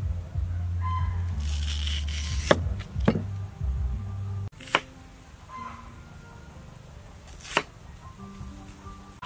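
A cleaver chopping through raw purple yam onto a wooden chopping board: four sharp, spaced knocks over background music.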